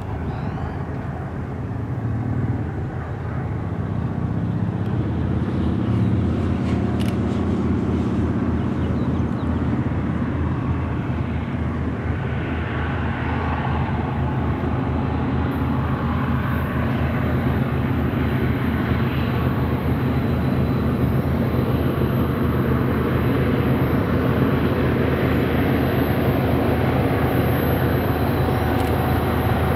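Diesel locomotives of an approaching freight train, their engines giving a low, steady drone that grows louder over the first several seconds and then holds.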